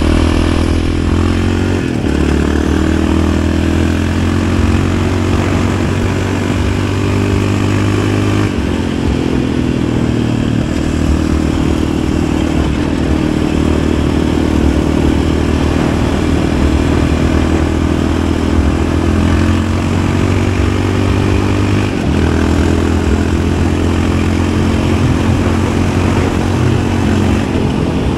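Yamaha Raptor 700 ATV's single-cylinder four-stroke engine running under way, its pitch shifting to a new steady level a few times.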